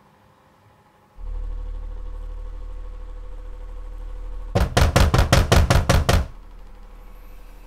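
A quick run of about eight loud, sharp knocks, roughly five a second, over a low steady hum that starts a second in and carries on more quietly after the knocking stops.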